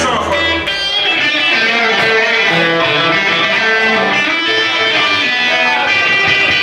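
A live band playing the opening of a song, led by electric guitar with picked and strummed notes. A low held note cuts off about half a second in.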